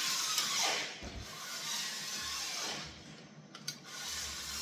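Cordless drill-driver running screws into a plastic housing. The motor whirs in short runs, its pitch dropping at the end of each as the screw seats, with a few light clicks about three and a half seconds in.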